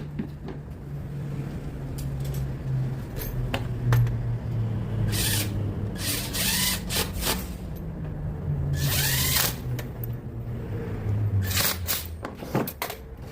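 Power drill running with its motor speed wavering, with scattered clicks and two short louder high-pitched bursts about five and nine seconds in.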